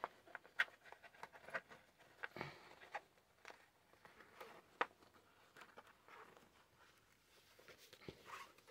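Faint, scattered clicks and rustles of a soldering iron and its cord being handled and pulled from the elastic strap of a zip-up tool case, with a sharper tick just under five seconds in.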